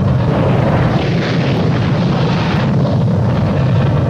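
Loud, steady rumble of wind and aircraft noise on the microphone, heavy in the low end and without a clear pitch.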